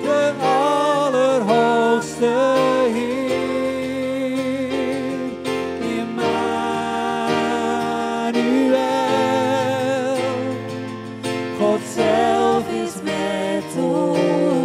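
A worship song: voices singing a wavering melody over steady instrumental accompaniment.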